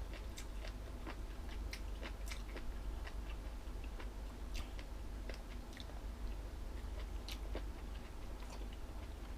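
Close-miked chewing of crunchy jellyfish salad: irregular sharp crunches and wet clicks from the mouth, over a steady low hum.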